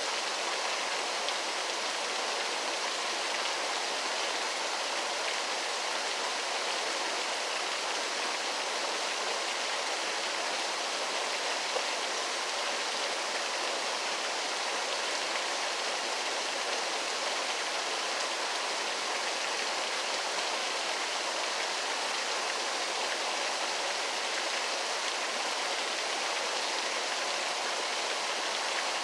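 Waterfall: a steady rush of falling water, an even hiss that stays the same throughout, with little low rumble.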